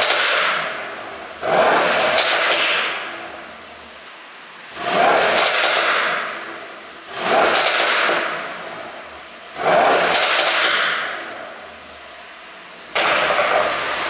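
Mercedes-AMG E63's twin-turbo V8 exhaust, revved in about five sharp throttle blips. Each blip rises suddenly and dies away over a couple of seconds with popping and crackling from the exhaust as the revs fall, the sound of an ECU tune set up for overrun pops. The last blip, near the end, is held longer.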